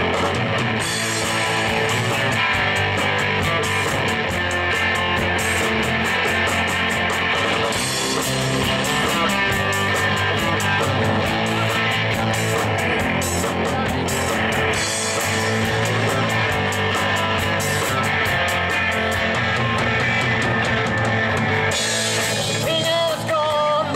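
Live rock band playing through a PA: electric guitars, bass guitar and drum kit with a steady beat. The cymbals drop out near the end.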